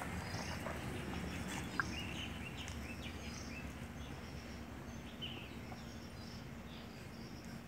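Quiet outdoor ambience: scattered short, high chirps over a low background rumble, with a single sharp click about two seconds in and a faint steady hum later.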